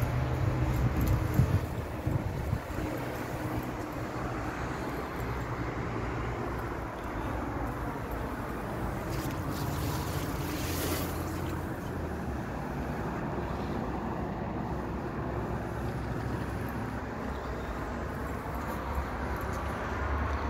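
Outdoor city ambience: a steady hum of distant traffic, with wind buffeting the microphone, gustiest in the first two seconds. A brief hiss comes about ten seconds in.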